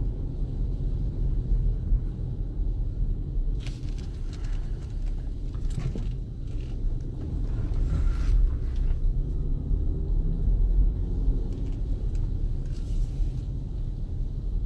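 Steady low rumble of a 2014 Jeep Grand Cherokee Summit driving on a snowy road, engine and tyre noise heard from inside the cabin. A few brief hissing sounds come through it.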